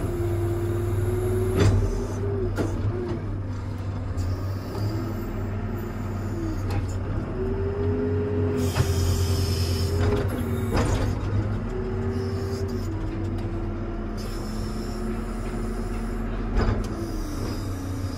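Hidromek 102S backhoe loader heard from inside its cab: the diesel engine runs with a steady low rumble, while a whine, most likely from the hydraulics, comes and goes in stretches of one to three seconds, its pitch stepping up and down as the machine is worked. A few sharp knocks stand out, near the start, in the middle and near the end.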